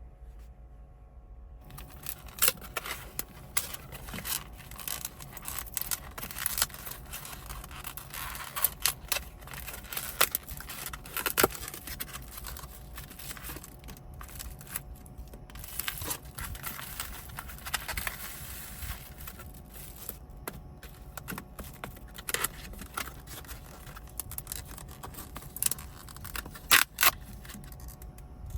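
Small objects being handled at close range: irregular clicks, scrapes and crinkling, starting about two seconds in, with a few sharper knocks near the end.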